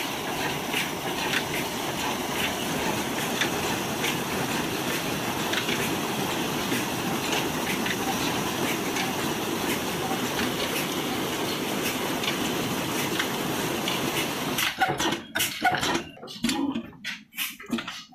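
Pumped water gushing heavily from a large discharge pipe into a brick tank, a steady rush with faint regular ticks under it. About fifteen seconds in it gives way to a few sharp, irregular clicks and knocks.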